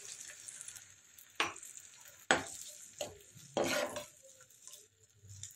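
Sauce sizzling in a nonstick pan, fading as water goes in, while a steel ladle stirs it, knocking sharply against the pan a few times and scraping once near the end.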